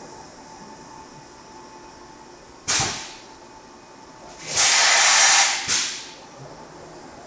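Park Industries TITAN CNC stone router letting off compressed air as it starts its program: a sudden sharp blast of hiss about three seconds in, then a louder hiss lasting about a second and a short burst right after it, over a faint steady machine hum.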